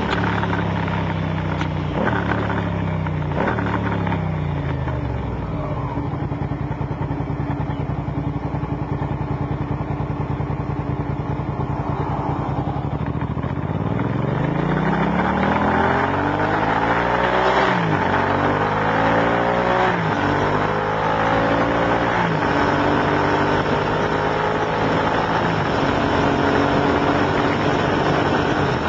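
An engine or motor running, its pitch falling and rising several times as its speed changes.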